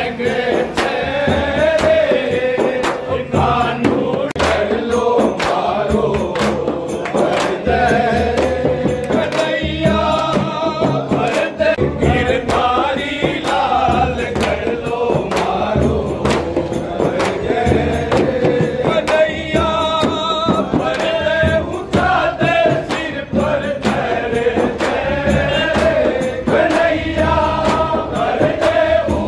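A group of men singing a Rajasthani Holi folk song (phag) together, accompanied by chang frame drums beaten in a steady rhythm.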